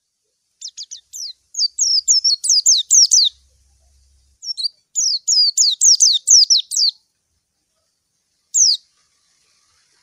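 White-eye (pleci) singing a rival-calling song: fast runs of sharply falling high whistled notes in two long phrases, then a single note near the end.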